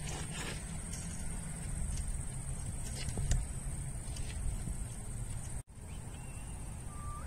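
Summer-night outdoor ambience on a phone microphone: a steady high insect drone, with low wind rumble underneath and a few faint clicks. The sound cuts out for an instant about two-thirds of the way through. No thunder is heard.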